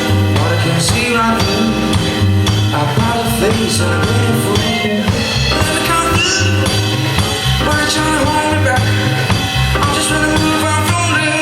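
A live pop band playing a song: a drum kit keeps a steady beat under a repeating low bass line and sustained melody notes.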